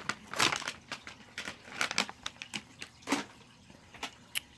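Irregular rustling and crinkling of plastic from squishy toys and their wrappers being handled, in short scattered bursts.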